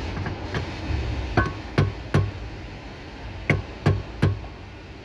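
Sharp metallic taps driving a new steering-column bearing onto a Hyundai Kona's steering column, tapped in until its centre sticks through. There are about seven strikes, mostly in two runs of three evenly spaced taps, some with a brief ring.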